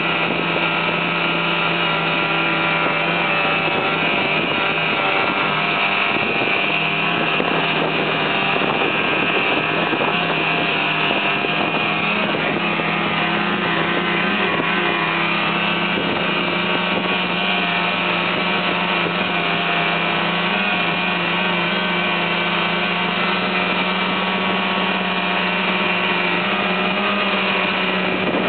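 Snowmobile engine running steadily under way, heard from on board as an even drone that holds its pitch with only slight shifts.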